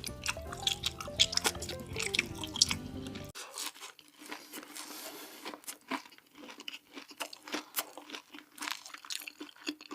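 Close-miked eating sounds: a person biting and chewing food, with many small crunchy clicks and wet mouth sounds. Background music with plucked guitar plays under it for the first three seconds or so, then cuts off.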